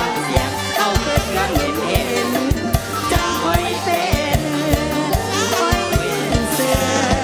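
Live mor lam band playing up-tempo music, with a fast steady drum beat under the melody, and singing.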